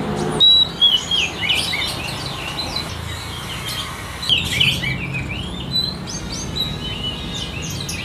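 Oriental magpie-robin (kacer) singing in its cage: runs of short, clear whistled and chirped notes, with a burst near the start and another a little past the middle.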